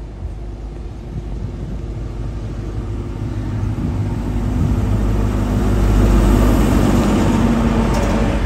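InterCity 125 High Speed Train's Class 43 diesel power car approaching and passing close along the platform. Its engine drone and the rumble of the train grow steadily louder, peaking about six seconds in.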